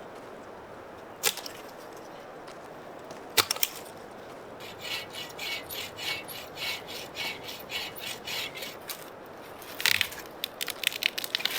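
Saw cutting through a dead, dry pine trunk in a quick run of strokes, about three a second. There are a couple of sharp cracks of wood before the sawing and a cluster of cracks near the end.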